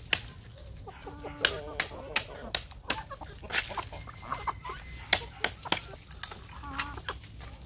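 Snail shells being cracked with a small metal tool against a log: sharp knocks, about three a second. Hens cluck in between, briefly after the first second and again near the end.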